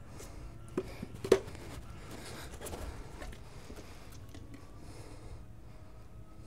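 Tire spoon and rim protector being worked onto a motorcycle wheel rim while levering on a tire: two sharp clicks about a second in, then faint rubbing and scraping.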